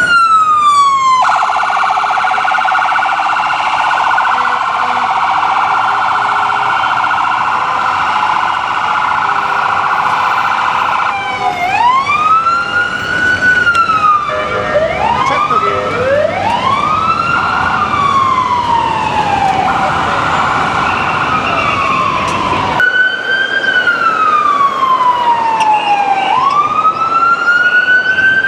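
Electronic ambulance siren switching between a slow rising-and-falling wail and a rapid yelp. It yelps for about ten seconds, goes back to the wail with a second siren overlapping it for a few seconds, yelps briefly again, then wails to the end.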